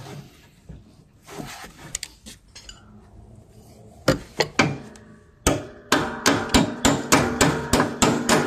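Hammer striking metal, driving a mower deck pin into place: a few light clinks of handling, two sharp blows about four seconds in, then an even run of about ten ringing blows, roughly three a second.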